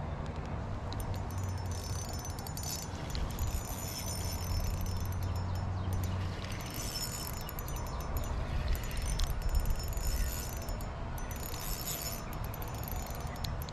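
Small ultralight spinning reel cranked in spells, its gears giving a light, high whirring tick, over a steady low hum.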